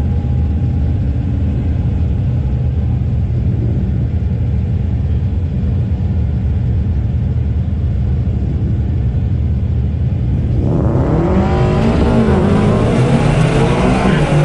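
Supercharged 5.0 Coyote V8 of a 2019 Ford F150 idling with a steady low rumble, then launching at full throttle about three-quarters of the way through. The engine note gets suddenly loud and climbs in pitch, dipping and climbing again as it shifts up.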